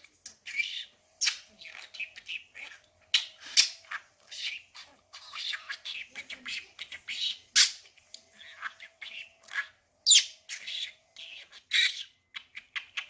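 Pet budgerigar chattering: a rapid, unbroken stream of high-pitched squawks, chirps and clicks, the warbling chatter of a talking budgie.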